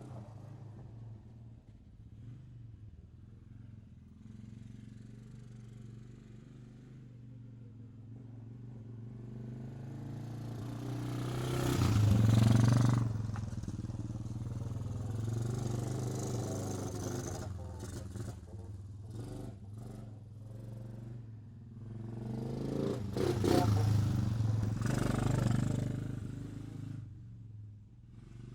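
Quad bike (ATV) engine running. It grows louder to a peak about halfway through, falls back, then swells again near the end, like the machine driving close by twice.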